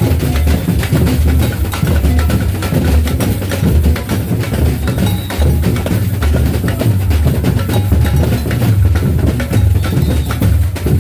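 Loud percussion-driven music with a heavy bass-drum beat and clacking wood-block-like strokes.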